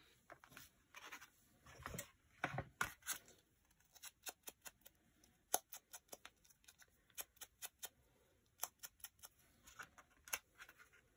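Faint paper handling: soft rustles of paper pieces being moved and pressed down, then a run of light taps and clicks, about one or two a second, through the middle.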